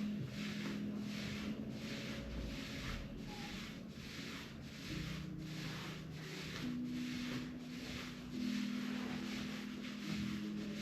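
Hands rubbing briskly back and forth over the body in massage strokes, a rhythmic scratchy rubbing about twice a second.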